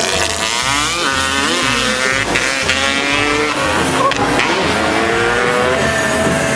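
Motorcycle engines revving up and down, with rising revs about half a second in and again around two seconds in, over background music with a steady beat.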